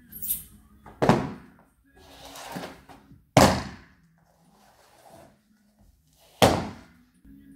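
Three sharp thuds of a pole dancer's body, knees and platform pole shoes landing on a wooden floor during a fast drop and drop split, about a second, three and a half seconds and six and a half seconds in, with a softer scraping rustle between the first two.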